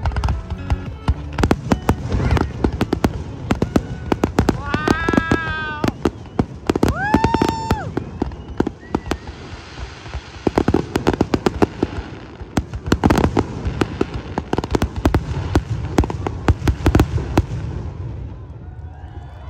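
Fireworks display: a dense string of bangs and crackling from aerial shells, thinning out and fading near the end.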